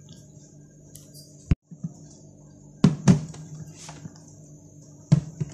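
Dishes being handled: about five sharp knocks and clinks of a plastic spoon and plates against ceramic serving dishes, over a steady low hum.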